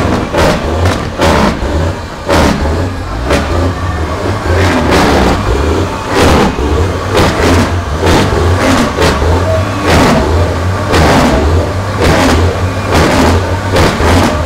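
Car engine revved over and over in short, loud blips above a heavy exhaust rumble.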